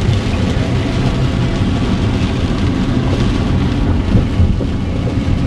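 Steady low rumble of a car driving on wet roads, heard inside the cabin, with rain hitting the windows and body.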